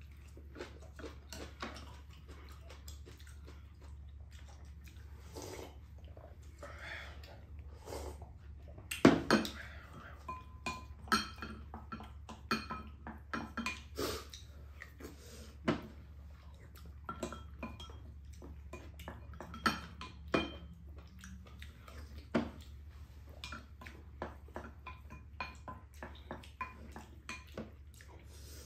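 Spoons and chopsticks clinking and scraping against ceramic bowls while eating: irregular light clinks with a few louder knocks about nine seconds in, some clinks ringing briefly. A low steady hum runs underneath.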